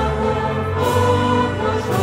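Choir singing a Polish Christmas carol (kolęda) in sustained, held chords with instrumental accompaniment.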